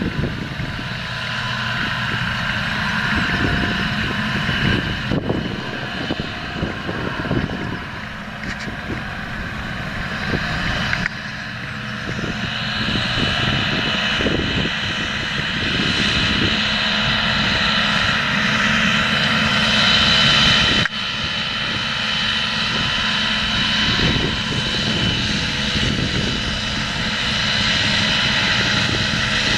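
John Deere 7230R tractor's six-cylinder diesel engine running steadily under load while pulling a seed drill, with a thin high whine over the engine drone for a stretch in the middle.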